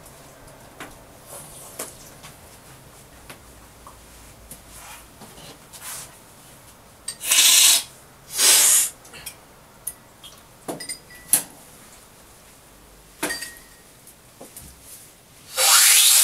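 Coffee being slurped loudly from a cupping spoon at a tasting, three times, each slurp a short hiss. Between the slurps there are light clinks of spoons against cups.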